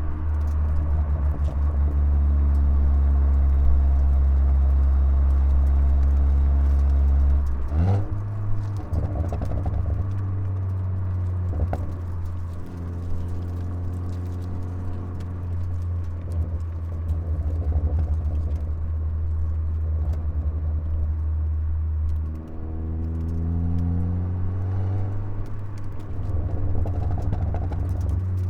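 Ford Focus ST turbocharged four-cylinder exhaust, with the muffler deleted and stock cat and resonator in place, held at steady raised revs for several seconds. It blips and drops back to a lower idle, then revs up again near the end. A few sharp pops from the Stratified crackle tune come as the throttle is released, over a deep, bassy drone.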